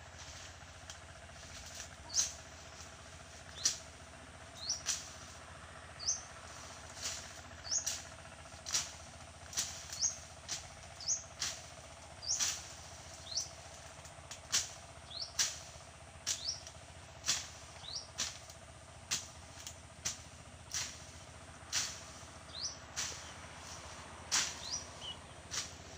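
Rhythmic strokes of a hand blade chopping weeds and grass, about one stroke a second, each a brief high swish ending in a sharp hit.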